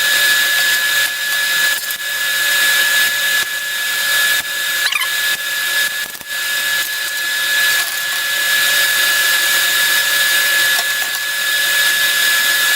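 TIG welding arc burning steadily from an inverter TIG welder: a constant hiss with a steady high whine that cuts off abruptly near the end.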